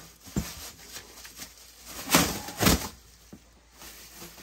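Sheet-metal furnace stove pipe being handled and worked loose: a short knock, then two loud rattling knocks about half a second apart a couple of seconds in.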